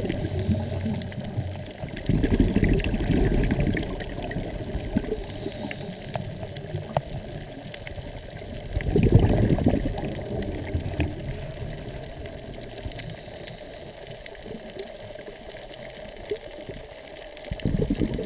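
Scuba diver's exhaled bubbles bubbling out of a regulator, recorded underwater: a loud burst at the start, another about two seconds in, one about nine seconds in and one near the end, with quieter water hiss between.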